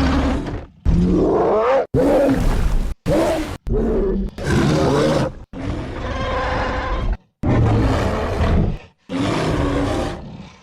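A rapid string of gorilla and monster roar sound effects: about nine separate clips, each roughly a second long, cut one after another with brief silent gaps.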